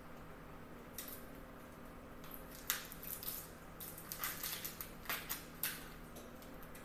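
Dry onion skin being peeled off a halved onion by hand: a series of short papery crackles and rustles.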